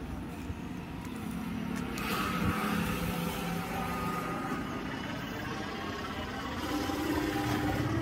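A motor vehicle's engine running nearby, a steady low rumble that grows a little louder about two seconds in.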